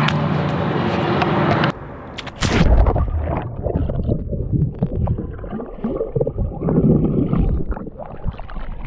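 River water gurgling and sloshing close against the microphone in uneven surges, as in a current. Before it, a steady drone cuts off abruptly about two seconds in.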